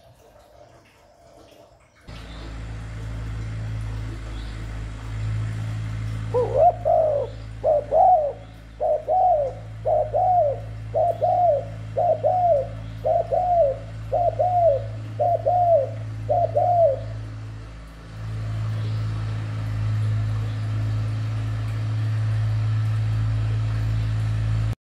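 Spotted dove cooing: a series of about ten similar coos, roughly one a second, each rising then falling, over a steady low hum.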